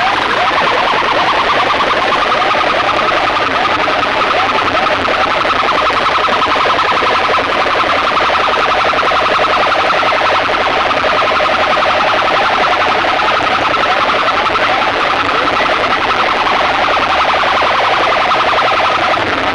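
Competition DJ sound system playing a loud, steady, siren-like alarm effect: a two-note electronic tone warbling with a fast, even pulse over a dense wash of noise.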